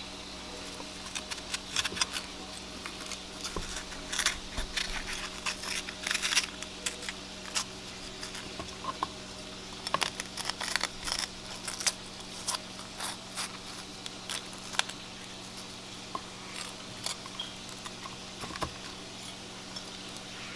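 Irregular crisp crackles and snaps as a raw red bell pepper is torn apart by hand and its seeds and core pulled out, with light taps on a plastic cutting board. A steady low hum sits underneath.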